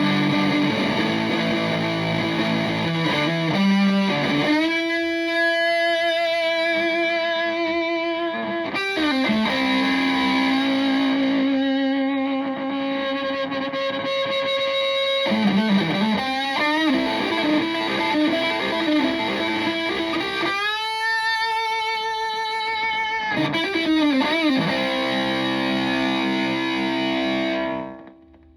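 Stratocaster played through a Tone Bender MKII fuzz pedal into a Twin Reverb-style valve amp: fuzzy electric guitar with long sustained lead notes shaken with vibrato, string bends and slides between them. The playing stops and the sound cuts off just before the end.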